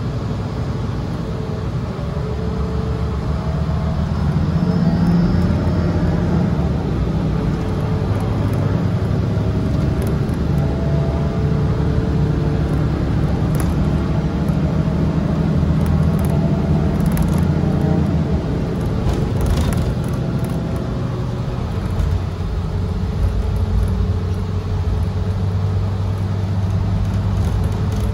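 Cabin noise of a moving 2017 Gillig Low Floor BRT 40-ft transit bus: a steady engine and drivetrain drone over road rumble, its pitch shifting as the bus changes speed. There are a few light clicks or rattles midway through.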